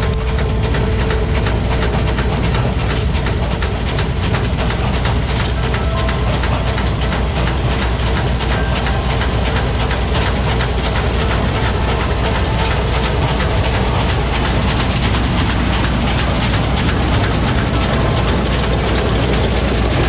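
Tractor-mounted combine harvester running while it cuts wheat: a steady low engine drone under a dense, even mechanical clatter.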